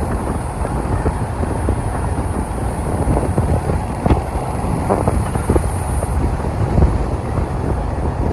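Wind buffeting the microphone in irregular gusts over the steady road noise of a moving car.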